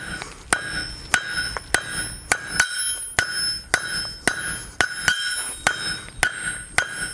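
Blacksmith's hand hammer striking hot flat steel bar on an anvil in a steady rhythm of a little under two blows a second, each blow ringing out from the anvil. This is forging down and drawing out the branches of a roasting fork.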